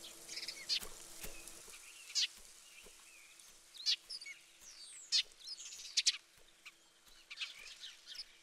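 Small songbirds calling: many short chirps and quick whistles scattered through, some sweeping up or down in pitch, over a faint steady low hum.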